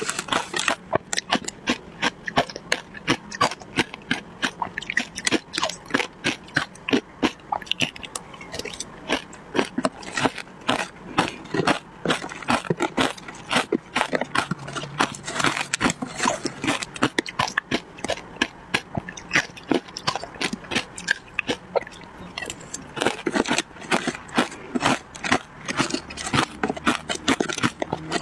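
Matcha shaved ice being chewed, a dense run of sharp crunches, mixed with a metal spoon scraping through the ice in a plastic tub.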